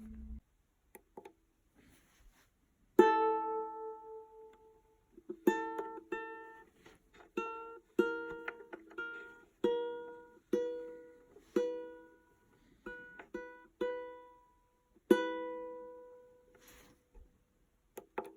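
Ukulele chords struck one at a time, each left to ring out and die away, in a slow, uneven rhythm. They start about three seconds in, after a near-silent pause, and stop a little before the end.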